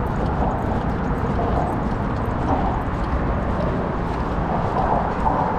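Walking noise picked up by an action camera strapped to a dog's back: a steady low rumble of wind and bridge traffic, with the quick, light rhythm of the dog's steps and the mount jostling.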